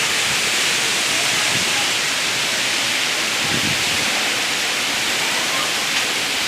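Heavy wind blowing in a storm, a steady rushing hiss with no distinct gusts.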